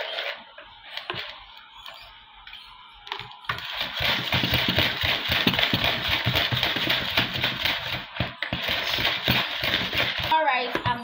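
Butter and sugar being creamed by hand in a plastic bowl: a hand beater scraping and slapping rapidly through the mixture. The strokes are sparse at first and become a fast, steady beating from about three and a half seconds in until near the end.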